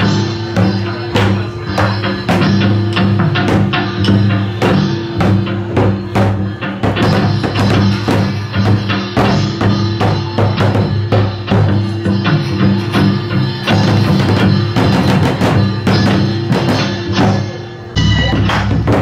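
Traditional Korean music for a drum dance: a barrel drum struck in quick, uneven patterns over steady sustained tones. The music changes abruptly near the end.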